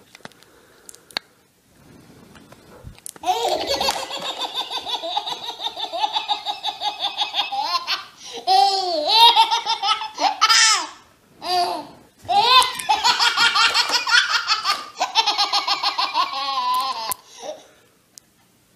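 Baby belly-laughing in long peals of rapid, high-pitched pulses, starting about three seconds in and broken by a few short pauses for breath.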